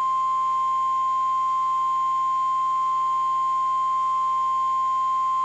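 NOAA Weather Radio warning alarm tone: one steady, unbroken beep at a single pitch, loud and constant, sounded to alert listeners that a warning, here a severe thunderstorm warning, is about to be broadcast.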